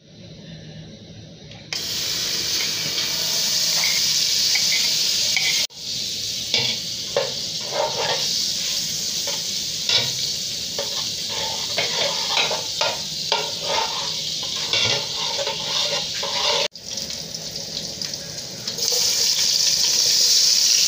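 Butter sizzling as it melts in a metal pot, with a spatula stirring and scraping it in many short strokes. Near the end the sizzle grows louder as chopped onion goes into the hot butter.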